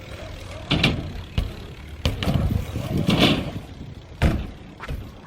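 BMX bike riding on skatepark concrete: tyre noise with about five sharp knocks and clatters of the bike hitting the ramps, and a louder rush about three seconds in.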